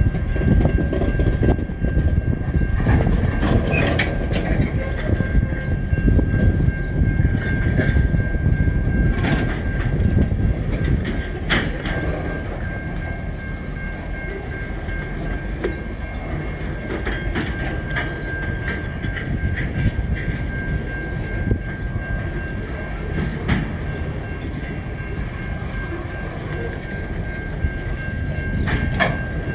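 Empty coal hopper wagons of a freight train rolling slowly past: a steady rumble of wheels on rail with occasional sharp clanks, and a steady high-pitched squeal from the wheels on the curve.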